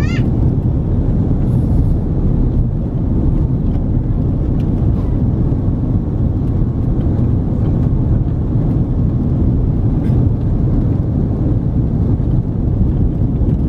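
Steady cabin noise inside an Airbus A330-300 descending on approach: a low, even rumble of the engines and rushing air heard from a window seat. A short rising chirp sounds right at the start.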